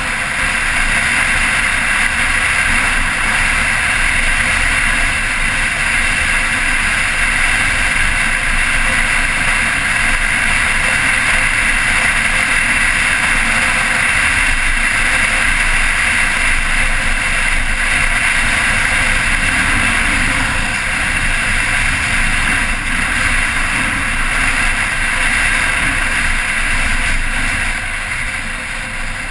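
Motorcycle riding at a steady speed, the engine running under a heavy rush of wind on the microphone; it gets a little quieter near the end.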